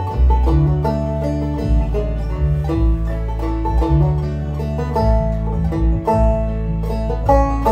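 Deering Clawgrass 2 banjo played clawhammer style, picking out a folk melody in quick plucked notes over a computer-generated backing track with sustained bass notes.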